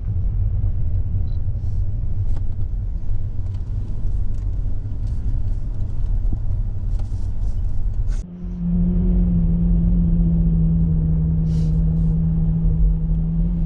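Low, loud vehicle rumble. About eight seconds in it breaks off and gives way to a steady, even engine hum at constant speed.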